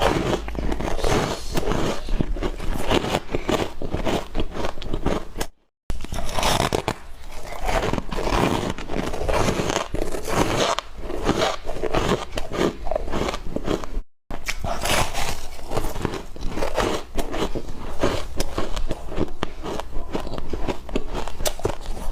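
Ice being bitten and chewed up close: dense, crackling crunches one after another, with two sudden brief drops to silence about five and a half and fourteen seconds in.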